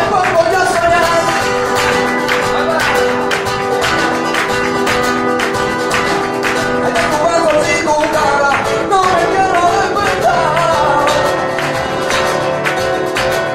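Live flamenco rumba: Spanish guitar and percussion (hand drum and drum kit) keep a fast, even beat. A singer's wavering, ornamented vocal line comes in at the start and again about eight seconds in.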